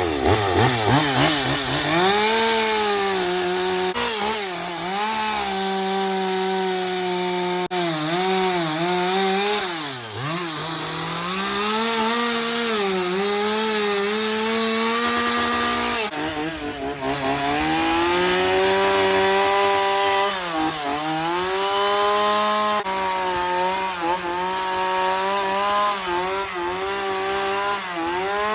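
Chainsaw running continuously while rough-carving a bear out of a log, its pitch dipping and recovering again and again as the chain bites into the wood and the throttle is eased and opened.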